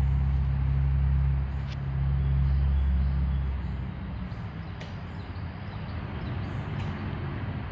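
Low, steady motor hum that drops away about four seconds in, leaving a steady background hiss with a few faint clicks.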